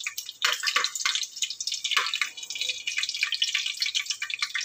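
Whole spices (cinnamon, cloves and cardamom) sizzling and crackling in hot oil in a pressure cooker, with a few sharper pops in the first couple of seconds.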